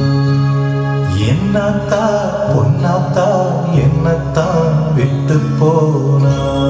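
Music: a sustained low drone, with a wavering melody line coming in about a second in.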